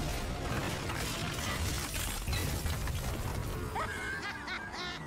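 Dramatic action music over a dense wash of crashing effects, with a voice coming in near the end.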